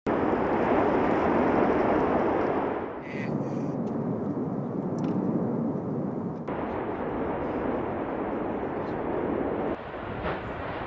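Erupting volcano's roar, a loud continuous rushing noise like jet engines. It changes abruptly three times as the footage cuts between clips.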